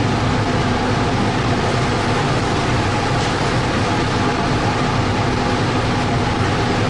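Steady drone of a stern trawler's engine and deck machinery, with a constant low hum and sea water churning at the stern as the trawl net is hauled in.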